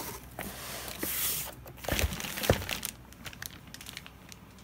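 Plastic wrapping crinkling and cardboard box rustling as a plastic-wrapped exhaust pipe is handled and lifted out of its box, with two dull knocks around the middle, then fainter scattered ticks.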